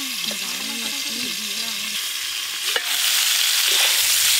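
Pieces of pointed gourd and potato sizzling as they fry in mustard oil in an aluminium kadai, stirred with a metal spatula. A single knock about three seconds in, after which the sizzling grows louder.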